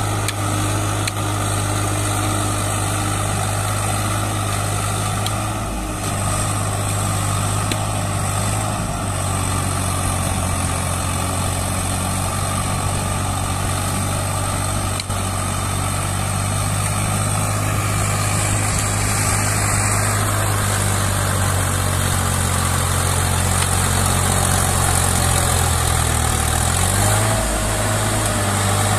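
Swaraj 744 FE tractor's three-cylinder diesel engine running steadily under load as it hauls a heavily loaded trailer through soft mud, its pitch wavering briefly near the end.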